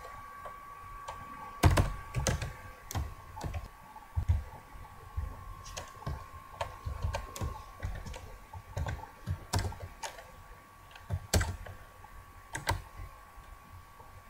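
Computer keyboard keystrokes: slow, irregular single key presses with pauses between them.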